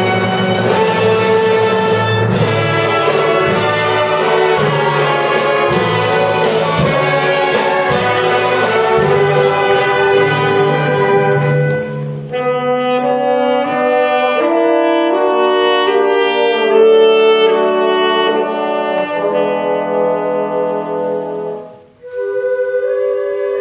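Brass and saxophone band playing live, full chords over a drum beat. About halfway through the drums drop out and the band holds long sustained chords. Near the end it breaks off briefly before the next phrase starts.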